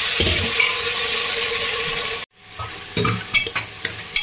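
Potatoes frying with cumin in hot oil in a pressure cooker, a loud steady sizzle. After a sudden cut about two seconds in, the sizzle is quieter, with a spoon scraping and clicking against the pot as the potatoes are stirred.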